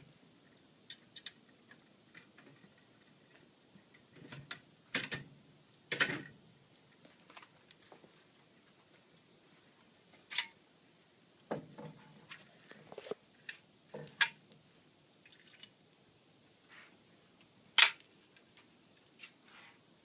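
Scattered metal clicks and clacks of an M6 Scout combination gun being put back together by hand, with one sharper snap near the end.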